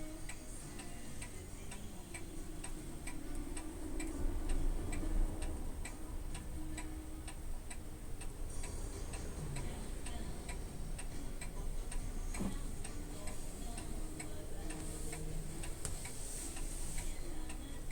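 Steady, even ticking at about two ticks a second, with faint soft tones beneath.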